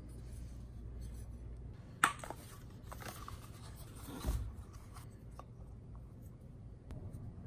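Motorcycle parts being handled by hand: a sharp clack about two seconds in, then rubbing and scraping, and a dull thump a little after four seconds as the plastic rear fender piece is moved about.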